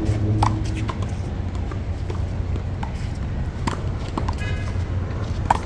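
One-wall handball rally: the rubber ball is slapped by hand and hits the wall in sharp smacks, with sneakers squeaking and scuffing on the court, over a steady low city rumble.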